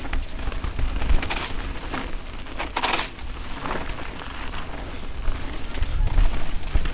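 Mountain bike riding fast down a dirt trail: wind buffeting the camera microphone, with tyres crunching over dirt and dry fallen leaves and the bike knocking and rattling over bumps. There is a louder scraping crunch about three seconds in.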